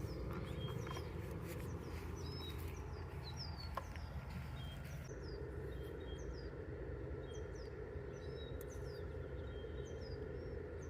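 Small birds chirping: many short, high, downward-sliding chirps, several a second, over a steady low background noise.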